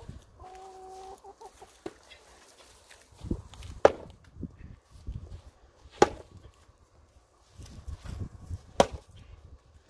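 Wooden cricket bat striking balls off cones: three sharp cracks, about two to three seconds apart, with softer low thumps between them.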